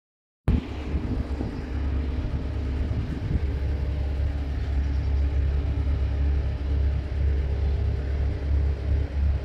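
Steady low engine rumble with a faint hum on top, starting abruptly about half a second in.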